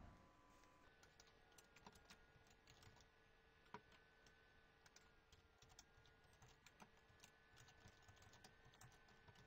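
Faint typing on a computer keyboard, irregular key clicks, over a faint steady hum.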